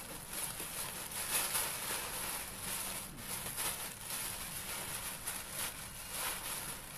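Black plastic garbage bag rustling and crinkling in irregular crackles as its gathered neck is twisted and tied shut.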